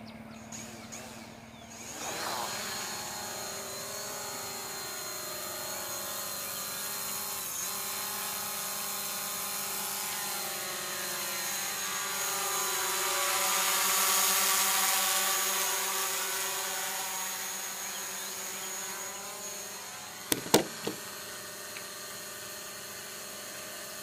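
A DJI Mavic Pro quadcopter's propellers spin up about two seconds in, then give a steady, high buzzing whine made of several tones as the drone lifts off and hovers about ten feet up. The whine grows louder toward the middle and eases again. A couple of sharp clicks come near the end.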